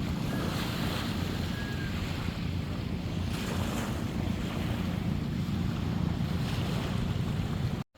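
Wind buffeting the microphone, with surf washing onto the beach in gentle swells. It cuts off abruptly near the end.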